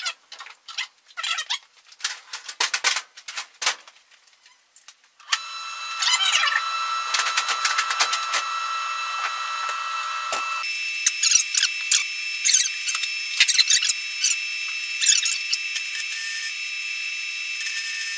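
Metal parts clicking and clinking as they are handled, then about five seconds in an electric arc welder starts up: a steady crackling hiss with a high whine and frequent sharp pops, joining a steel bushing to a tree step. Partway through, the sound shifts to a higher tone.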